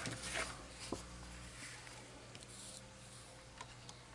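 Faint handling of paper scratch-off lottery tickets. A click, then brief soft rustling and sliding of the card stock as one ticket is swapped for the next, with a few light ticks near the end.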